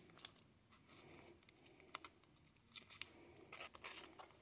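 Faint plastic rustle and a few small ticks: a trading card being slid into a clear soft plastic card sleeve.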